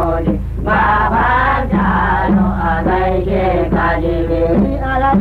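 Hausa praise song: male voices singing in a chanting style over a low steady hum, on an old recording with a muffled, narrow sound.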